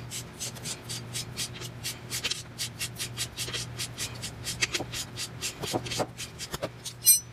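Ratchet clicking in quick, even runs, about five clicks a second, as the 13/16 nut is run off the lower control arm's mounting bolt while a T55 Torx bit holds the bolt head. A single sharp, ringing metallic clink comes near the end.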